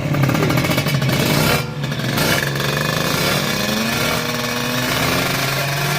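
Kawasaki Ninja motorcycle engine running loud at high, steady revs with a raspy exhaust note, and a second engine note rising about four seconds in.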